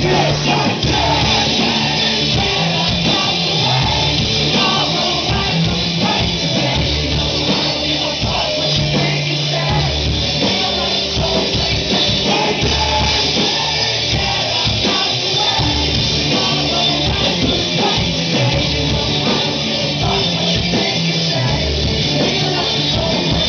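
Loud live rock band playing with singing over it, heard from the audience in a concert hall; the bass holds low notes that change every second or two.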